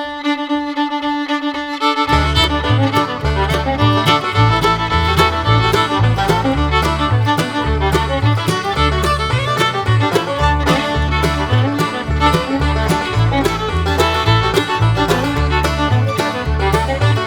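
Upbeat instrumental background music: a held note opens it, then a bass line and a quick steady beat come in about two seconds in.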